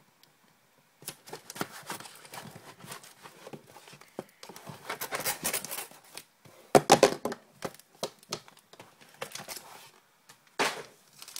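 Plastic shrink-wrap being torn and crinkled off a hockey card box, with small taps and scrapes as the box is handled. The crinkling comes in bursts, loudest a little past the middle.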